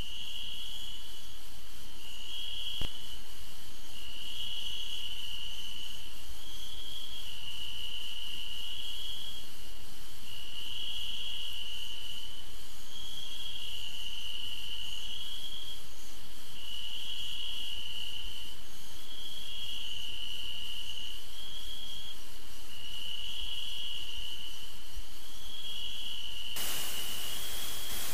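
Crickets chirping steadily in a repeating night-ambience sound effect. Near the end a broad, static-like hiss comes in over it.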